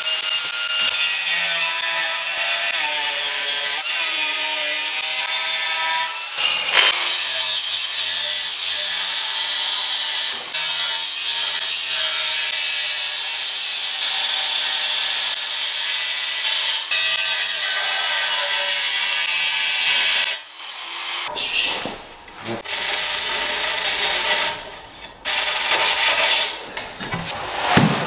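Corded angle grinder with a diamond blade grinding along the edge of a porcelain tile, cut dry: a steady high whine over a grinding hiss. About twenty seconds in it turns intermittent and uneven, in short spurts.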